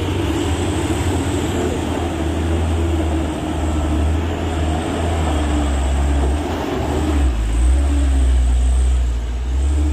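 A road vehicle's engine running with a deep low rumble, growing louder about seven seconds in.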